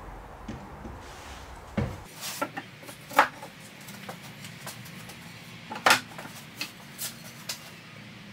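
Wooden knocks and clunks as wooden legs are handled and set into the joints of a glued wooden frame on a wooden workbench. The loudest knocks come about three and six seconds in, with lighter taps between.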